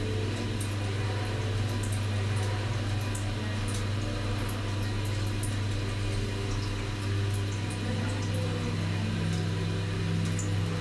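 Steady low hum with an even hiss in a small tiled room, with faint scattered ticks; a second, slightly higher hum tone joins about seven seconds in.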